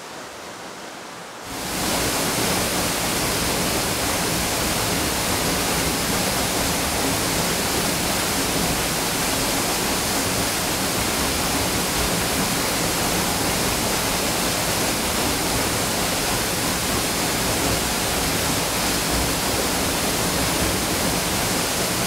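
Waterfall pouring into a rock pool: a steady, dense rush of falling water that comes in about a second and a half in and holds unchanged.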